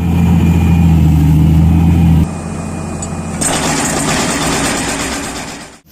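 Excavator's diesel engine running steadily. About two seconds in the sound drops and changes, and a harsher, hissing noise joins about three and a half seconds in.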